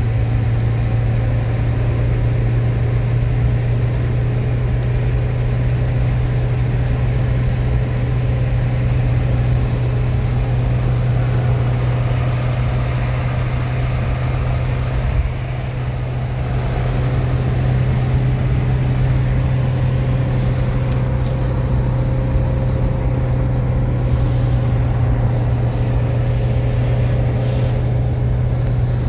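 Car driving at speed, heard from inside the cabin: a steady low engine and road drone that dips briefly about halfway through, then picks up again.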